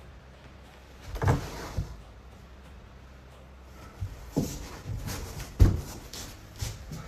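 A series of irregular knocks and thumps over a low steady hum: two about a second in, then a cluster of six or so from about four seconds on, the loudest about three quarters of the way through.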